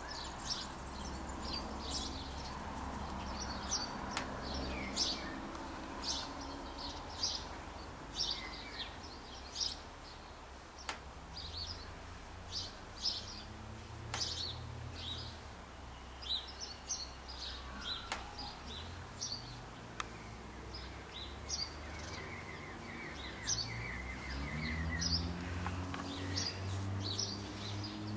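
Small birds chirping outdoors, many short high chirps through the whole stretch, over a low hum whose pitch rises near the end.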